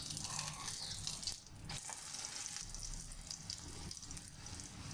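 An egg omelette sizzling and crackling in hot oil in a frying pan as it is turned over with a spatula and fries on its second side. The hiss is busiest in the first second and a half.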